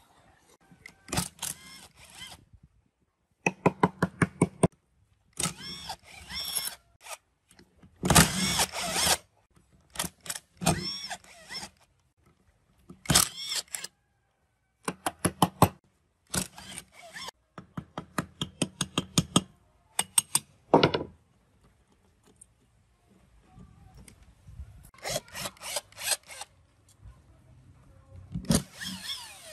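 Cordless impact driver hammering in a series of short bursts as it loosens the rusty cylinder-head bolts of a small generator engine, with brief pauses between bursts.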